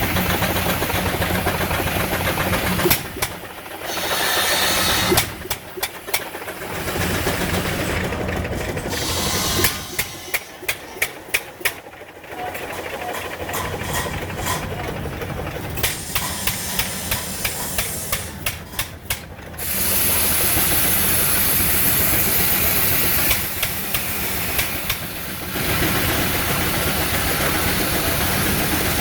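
Case steam engine running a sawmill: steady hissing steam and machinery noise, with a quick run of sharp knocks about a third of the way in and a loud, high-pitched steam hiss for a few seconds about two-thirds through.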